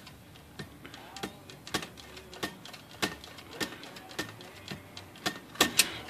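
Typewriter carriage clicking along its escapement one step at a time, about two clicks a second, with a few louder clicks near the end. The carriage is being worked toward the spot where it binds and jams.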